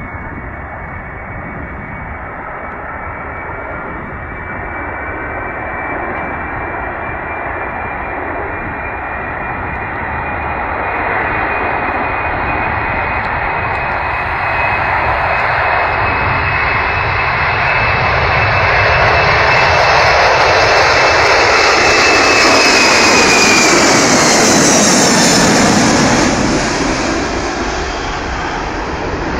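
Boeing 747 Dreamlifter's four turbofan engines at takeoff thrust through the takeoff roll and liftoff: a steady jet rumble with a high whine that grows louder as the aircraft approaches. Near the end, as it passes, the whine drops in pitch and the sound eases off.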